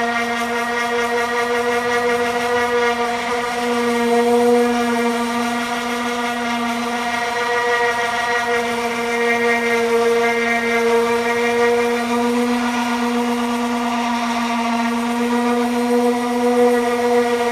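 A shop power tool's motor running steadily with a constant whine at one pitch, swelling slightly in strength now and then.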